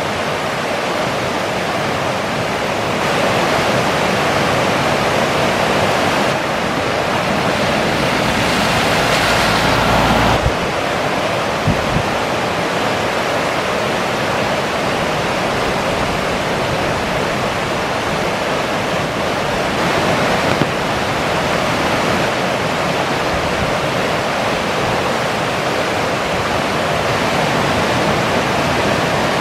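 River in spate after days of heavy rain: fast brown floodwater rushing over rapids and under a bridge, a loud steady roar of water. The tone of the rush shifts a few times in the first ten seconds, with a low rumble just before the tenth second.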